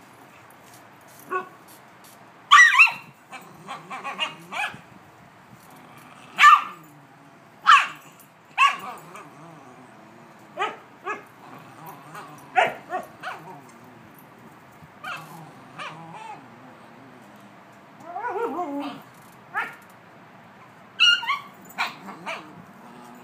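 A husky and a puggle barking and yipping in play: short, sharp barks scattered a second or two apart, with a longer call that wavers in pitch about eighteen seconds in.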